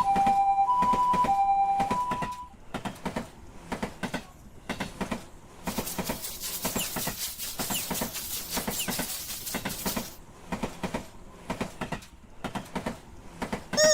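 Railroad crossing warning bell ringing "kan-kan" in two alternating tones, stopping about two seconds in. A train passes with a rhythmic clatter of wheels over rail joints, and a rushing noise swells from about six to ten seconds.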